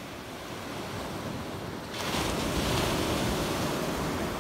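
Small waves breaking and washing up a sandy beach, a steady hiss of surf that swells louder about two seconds in as a wave comes in.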